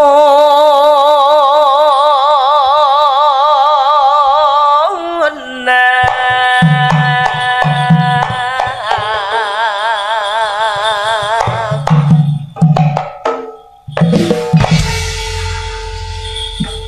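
Javanese-style live music: a woman sings a long held note with wide vibrato for about five seconds. The melody then carries on in steady stepped notes over clusters of hand-drum strokes.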